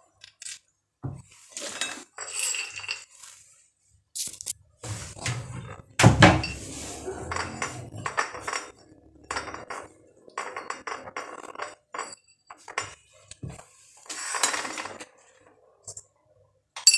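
Raw groundnuts being sorted by hand on ceramic plates: irregular clicks and clatters of nuts on china, with the loudest clatter about six seconds in.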